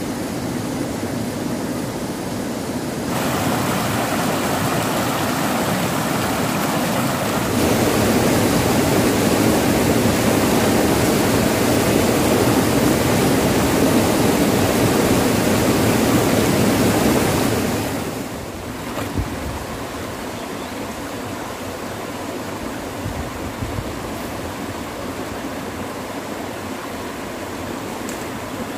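Shallow rocky river running over and between boulders: a steady rush of water that gets louder about three seconds in and again about eight seconds in, then drops back quieter at about eighteen seconds.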